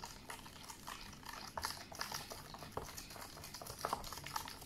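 Glue and baking soda mixture being stirred by hand in a large plastic bowl: a string of small irregular wet clicks.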